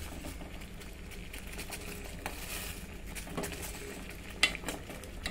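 Water boiling in a small stainless-steel pot while a metal spoon stirs the leaves in it, with a few sharp clinks of the spoon against the pot; the loudest clink comes near the end.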